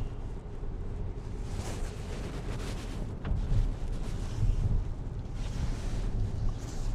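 Steady low rumble inside a car's cabin, with several hissing swells and a single sharp click about three seconds in.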